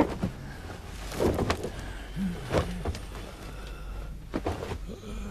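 A scuffle: a series of dull thumps from blows and bodies at irregular intervals, with a man's short groan about two seconds in.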